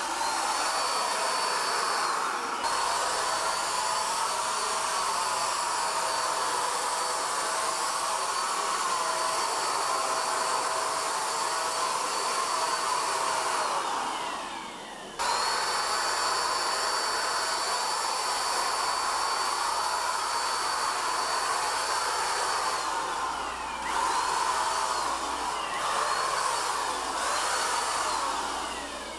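Cordless electric paint sprayer running as it sprays water-based polyurethane: a steady rush of air with a high motor whine. Its pitch sinks and picks back up a few times, once about halfway through and again near the end.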